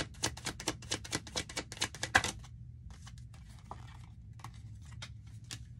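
Tarot cards being shuffled by hand: a quick run of crisp card clicks for about two seconds, then slower, scattered clicks. A faint steady low hum runs underneath.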